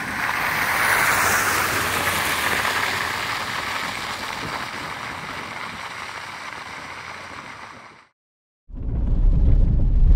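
Pickup truck passing on a wet, slushy road: a rushing tyre hiss and engine noise that swells in the first second or two and fades away over several seconds. It cuts off, and after a brief silence the low, heavy rumble of driving heard from inside the truck's cab on a dirt road takes over near the end.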